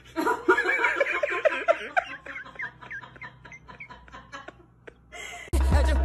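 A person laughing in a rapid run of short bursts that tails off, then music starts abruptly near the end.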